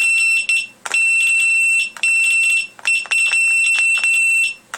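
Electronic bite alarm set from Advanced Technology Tackle, sounding a loud, high, steady beeping tone. It comes in repeated bursts, some short and some about a second long, as the freshly repaired unit is tested and works.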